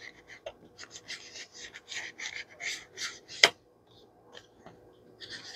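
Quick scrubbing strokes of an ink applicator rubbing Vintage Photo ink onto paper, about four strokes a second, with one sharp tap about halfway through that is the loudest sound.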